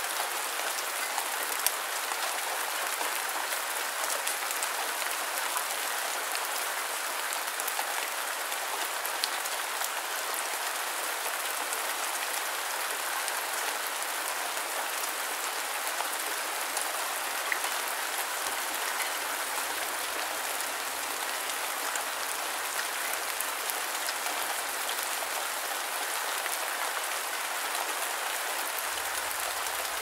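Steady rain falling: an even hiss with many scattered sharp ticks of individual drops striking.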